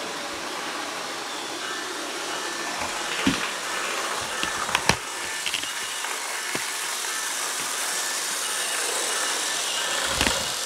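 HO scale model train running on the layout: a steady whirring of motor and wheels on track, with a few sharp clicks.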